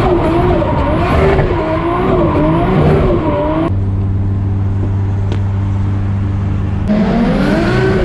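Car engine in cut-together clips: revving up and down for a few seconds, then a steady low idle that cuts off suddenly about seven seconds in, then revving again.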